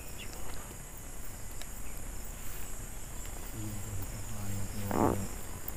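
Steady high-pitched chorus of insects in the undergrowth. A low, steady hum comes in about three and a half seconds in for under two seconds, with a brief burst of noise near the end.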